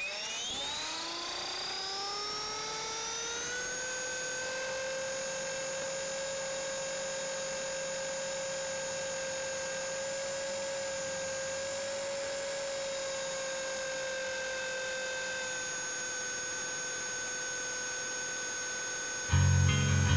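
Align T-Rex 450 electric RC helicopter's motor and rotors spooling up with a rising whine over the first few seconds, then holding a steady whine in flight. Guitar music comes in loudly about a second before the end.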